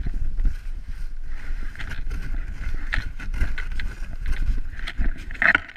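Plastic sled sliding over snow as it is pulled along, a continuous rough scraping rumble, with wind buffeting the microphone.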